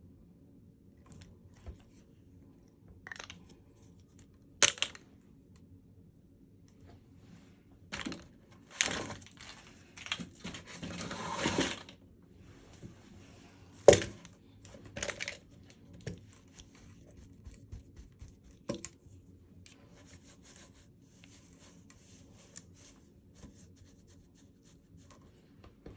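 Packaging being handled and torn open: rustling and tearing that swells for a few seconds around the middle, with scattered clicks and a couple of sharp knocks.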